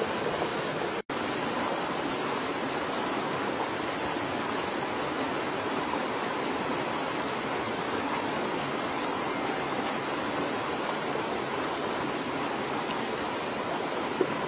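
Steady rushing of a stream: an even hiss of running water, broken by a very short gap about a second in.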